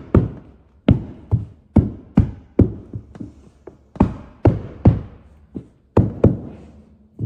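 Hammer blows on a carpet stair tool, driving the carpet tight into the back of each step. Sharp knocks come about two a second with a few short pauses, each ringing briefly.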